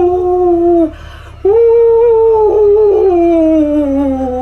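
A person's voice wailing a ghostly 'huuu' in two long hoots: the first ends just under a second in, and after a short pause the second slides slowly down in pitch.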